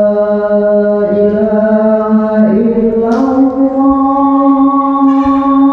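A man chanting the maghrib call to prayer (adhan) in long held, melodic notes, the pitch stepping up about halfway through.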